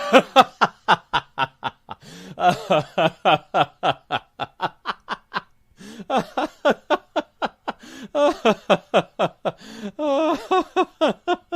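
A person laughing in runs of quick "ha-ha-ha" pulses, about four or five a second, with brief pauses for breath between the runs.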